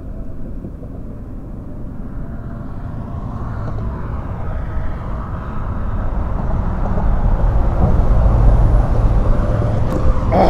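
Low engine rumble of outdoor traffic noise, growing steadily louder over several seconds.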